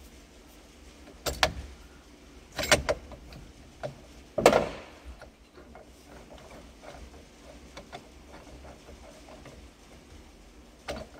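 Metal clinks and knocks of a steering wheel puller and its bolts being handled and threaded by hand into the steering wheel: three sharp knocks in the first five seconds, the third the loudest, then faint irregular ticking, and another knock near the end.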